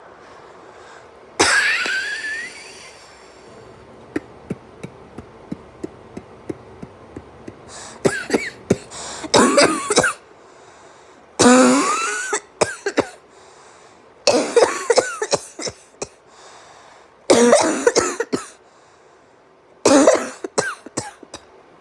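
A person coughing through a deliberate cough routine. About a second in comes a long cough with a wheeze that rises in pitch, then a run of small, short suppressed coughs. From the middle on come five loud bouts of coughing a few seconds apart, each trailing off in quick short coughs.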